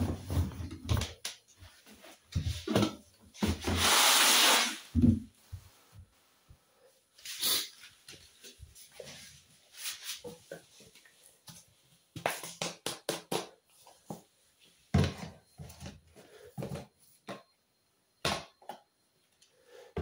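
Laundry being pushed into and handled in the drum of a front-loading washing machine: fabric rustling with scattered clicks and knocks, and one longer, louder rustle about four seconds in.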